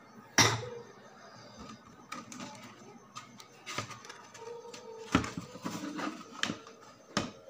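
A few sharp clicks and knocks of handling on a workbench, the loudest about half a second in and several more in the second half.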